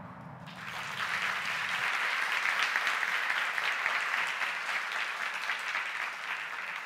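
Audience applauding in a hall, the clapping starting about half a second in and tapering off near the end, while a low hum fades out in the first two seconds.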